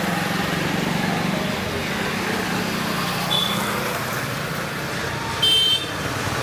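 Steady background traffic noise with a low hum, broken by a short high tone about halfway and a louder, brief shrill sound near the end.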